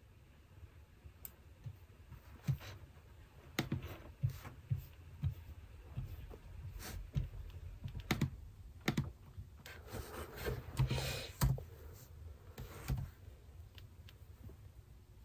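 Typing and clicking on a computer keyboard: irregular, scattered key taps and clicks, with a denser patch of scuffing and clicking about ten to eleven seconds in.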